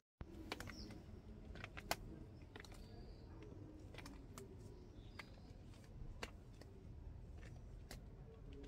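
Quiet outdoor ambience: a low, steady background with scattered faint clicks and taps at irregular intervals, the sharpest about two seconds in, and a faint short high chirp or two.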